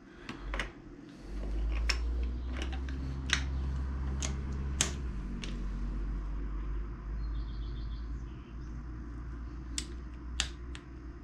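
Irregular sharp metallic clicks and taps from a torque wrench, long extension and spark-plug socket as a new iridium spark plug is turned in and tightened to 13 Nm, over a steady low hum.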